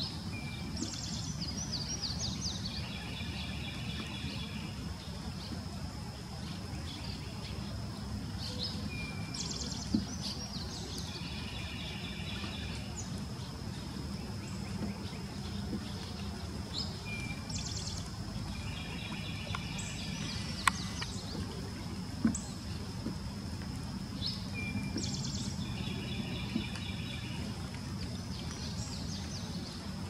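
A songbird singing the same short phrase four times, about every eight seconds: a brief whistle, then a quick run of high notes. A steady high-pitched tone and a low background rumble run underneath, with a few sharp clicks.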